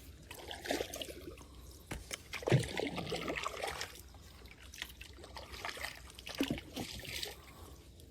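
Water splashing and trickling around a small rowing boat in uneven surges, as from paddling and handling wet net lines, the strongest splash about two and a half seconds in.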